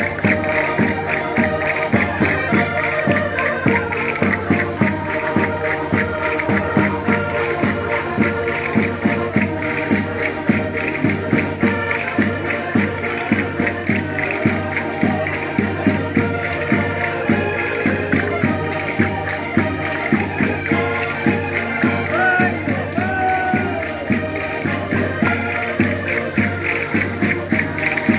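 Concertinas playing a lively traditional Minho folk dance tune in sustained reedy chords, over a steady percussive beat.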